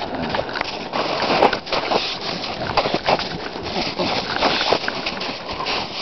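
English bulldogs scrambling and pawing in deep snow right by the microphone: an irregular run of crunches and scuffs.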